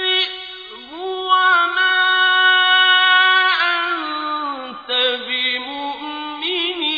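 Melodic Quran recitation: a single reciter chanting Arabic verses in slow, drawn-out phrases. About a second in the voice glides up into a long held note, then moves through ornamented, quavering turns and falling phrases in the second half.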